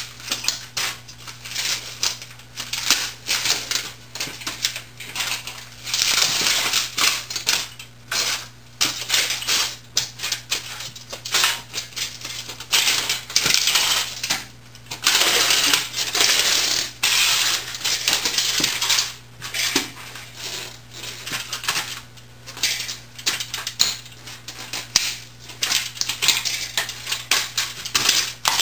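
Wesco boots stomping on and crushing the plastic and metal parts of an old 1980s word processor: irregular cracking, snapping and clattering of pieces, with longer grinding crunches every so often.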